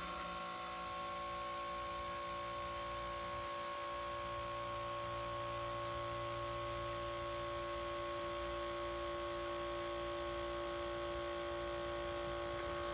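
Iwata Hammerhead Shark oil-lubricated airbrush compressor running steadily: an even motor hum with a few held tones, metered at about 62 dB.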